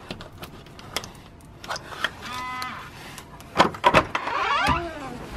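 Electronic hotel key-card door lock being opened: scattered clicks as the card goes in, a short buzzing tone from the lock about two seconds in as it accepts the card, then sharp latch and handle clicks as the door is pushed open.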